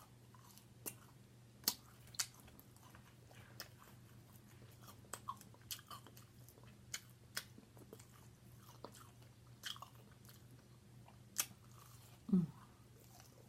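Close-up chewing and biting of chicken strips, with irregular wet mouth clicks and small crunches. Near the end there is one short, falling vocal hum.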